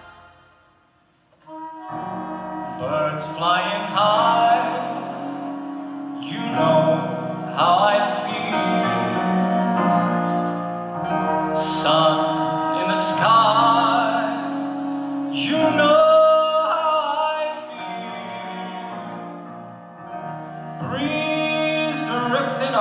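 Live orchestral music: a piece fades out at the start and, after a brief lull, a new slow number begins about a second and a half in, with sustained string and piano chords under a singing voice.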